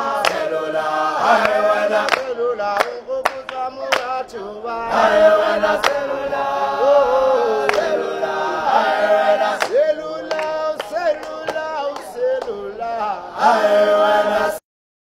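A group of young voices singing together in harmony, with hand claps breaking in now and then. The singing cuts off suddenly near the end.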